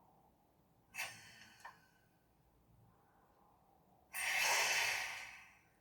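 Air-brake hiss from a model Class 55 Deltic's sound decoder speaker, as the locomotive brake function is switched on and off: a short hiss about a second in with a click just after, then a louder hiss of about a second and a half near the end.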